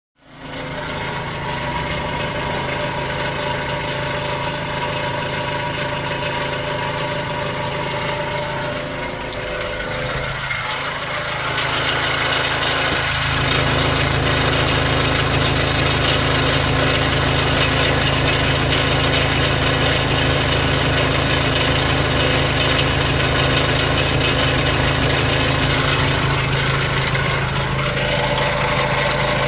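Renault Kangoo 1.9 dCi four-cylinder diesel engine running steadily at idle, getting louder about twelve seconds in. This is the engine noise the owner considers a defect.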